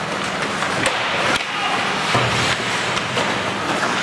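Ice hockey play in a rink: a steady hiss of skates and rink noise, with a couple of sharp knocks about one and one and a half seconds in.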